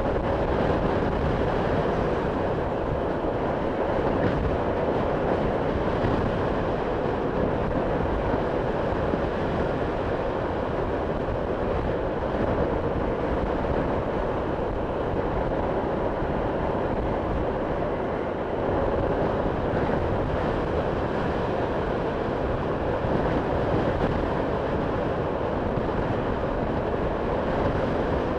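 Steady wind rush on the microphone mixed with motorcycle engine and road noise while riding at an even cruising speed.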